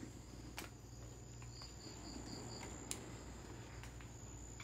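Faint night insects: crickets with a steady high trill and a quick run of five chirps about two seconds in, over a low steady hum.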